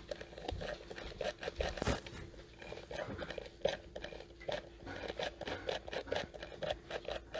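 Irregular small clicks and scrapes of hard plastic parts as fingers handle and move the mouth mechanism inside a Gemmy animatronic scarecrow's head.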